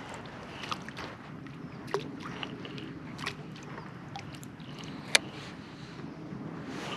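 Scattered light clicks and knocks of fishing rod and reel being handled in a kayak as the lure is brought in to hand, over a soft steady wash of water and wind. The sharpest click comes about five seconds in.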